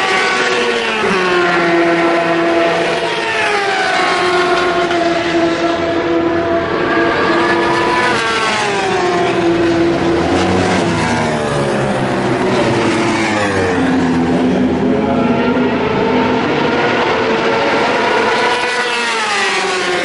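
Endurance racing motorcycles running at speed past the pit straight, several engine notes overlapping, each dropping in pitch as it goes by.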